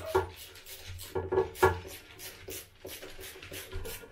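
A hand screwdriver turns a long screw with a washer through the back of a ceramic toilet cistern into the wall. It makes short rasping scrapes in quick, uneven succession as the screw is driven home.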